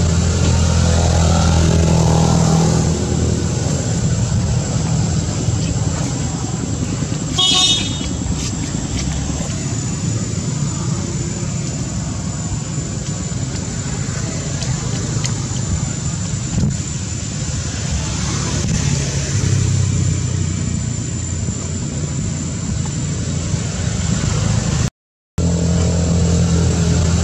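Road traffic: vehicle and motorbike engines running steadily, with a short horn toot about seven seconds in.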